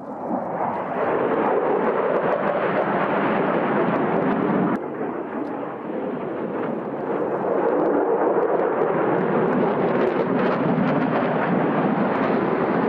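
Jet noise of a single F-16 fighter flying a low pass and pulling up: a loud, steady rushing noise. It changes abruptly and drops slightly about five seconds in, then comes back up.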